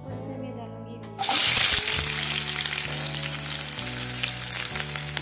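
Sliced onions and cumin seeds frying in hot oil in a kadhai: a loud sizzle that starts suddenly about a second in. Background music plays throughout.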